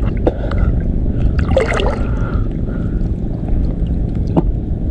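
Water lapping and gurgling over a steady low rumble, with a brief pitched sound about one and a half seconds in and a couple of faint knocks.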